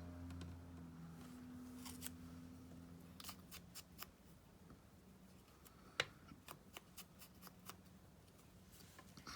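Scissors snipping paper in scattered light clicks, with one sharper click about six seconds in. A low steady hum fades out after the first three seconds.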